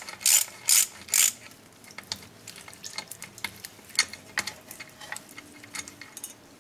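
Ratchet wrench backing out the last 10 mm bolt of the oil-pan cover on a BMW S54 engine: three clicking strokes about 0.4 s apart in the first second or so. Then scattered light metallic ticks and taps as the cover is worked free by hand.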